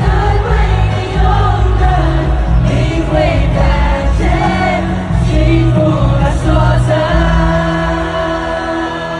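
Live pop ballad played by a band, with several voices singing together over sustained bass notes, heard from the audience.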